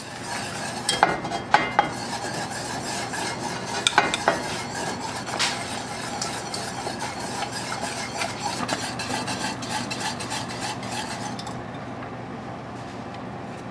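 Wire whisk stirring polenta in an enamelled cast-iron pot: a steady scraping swish with the tines clicking against the pot, a few sharper clicks in the first few seconds. This is cornmeal being whisked into the cooking liquid as the polenta thickens, and it grows quieter near the end.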